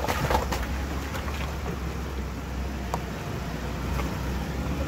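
Ram 1500 pickup crawling in four-wheel-drive low range up a rocky, icy creek bank: a steady low engine and drivetrain rumble with tyre noise, and a couple of short sharp knocks from the ground under the wheels.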